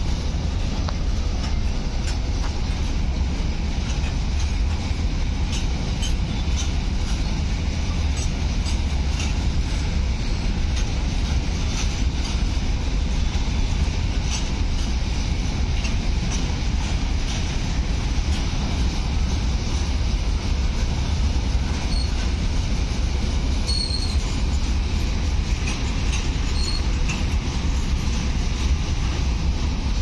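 Freight train of BOXN open-top wagons rolling past, a steady rumble with the wheels clicking and clanking over the rail. A few brief high wheel squeaks come near the end.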